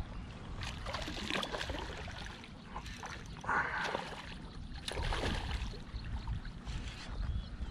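Hooked barramundi thrashing at the water's surface, splashing in several bursts as it fights the line.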